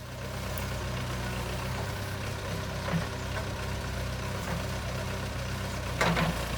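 Diesel engine of a JCB 3CX backhoe loader running steadily, with a short, louder burst of noise near the end.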